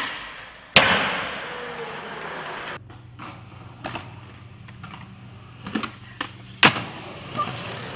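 Skateboard on concrete: a loud clack of the board hitting the ground about a second in, then the hard wheels rolling and fading. Later a few more sharp board clacks come close together, the loudest near the end.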